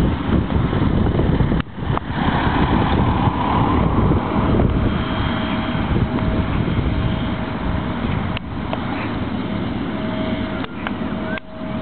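Boeing 777-300ER's GE90-115B jet engines running as the airliner moves away along the airfield: a steady, loud engine noise with a few brief dropouts.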